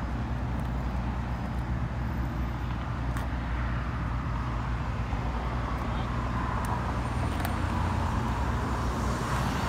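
Outdoor traffic noise: a steady low motor hum with the hiss of passing cars, swelling a little in the second half.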